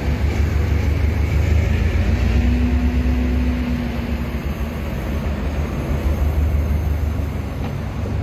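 Train running at a railway station: a steady, heavy low rumble with a noisy wash above it, and a faint steady tone joining briefly about two seconds in.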